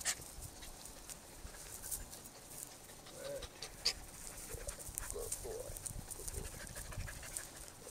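Norwegian Elkhound dogs panting close by, with a few short whines from about three seconds in, and scattered light clicks.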